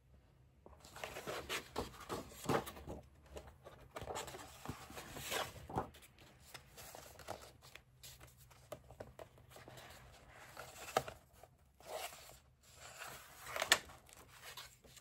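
Paper pages of a colouring book rustling and sliding under hands as a fold-out page is folded back and a page is turned, with one sharper snap of paper near the end.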